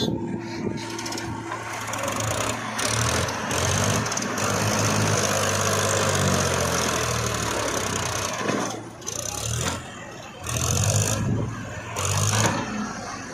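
Heavy diesel machinery working: an engine running and revving up and down several times under load, with a rushing noise over it.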